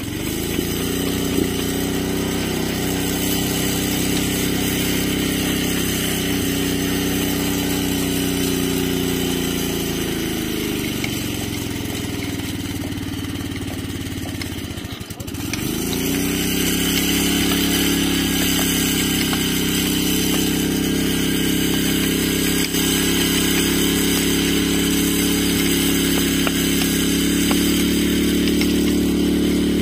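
Small petrol engine running steadily; about halfway through its speed sags and almost dies, then picks back up and holds.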